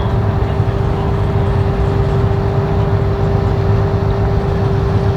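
An engine running steadily: a low drone with a constant whining tone above it.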